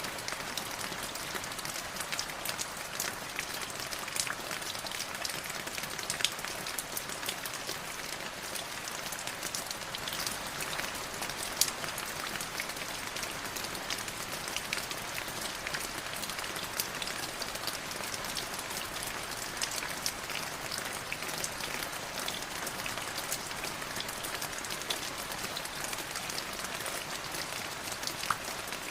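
Light drizzle falling steadily: a soft even patter of rain on a surface, with many small separate drop ticks and an occasional louder drip.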